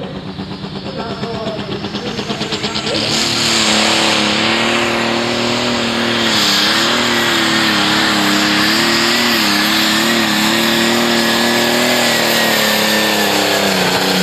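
John Deere 4050 Pro Stock pulling tractor's turbocharged diesel engine, revving at the line and then going to full power about three seconds in as it drags the weight sled. It runs loud and steady at high revs with a thin high whine on top and a few brief dips in pitch, then the revs start to fall near the end.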